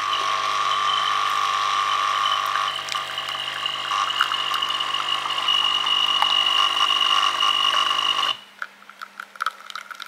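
Scott Slimissimo bean-to-cup coffee machine running noisily as it brews an espresso shot: a steady mechanical hum that cuts off suddenly about eight seconds in, followed by faint drips into the cup.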